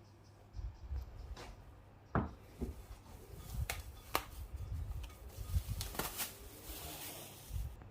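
Objects being handled in a home: a string of light knocks and clicks, with a rustling hiss near the end.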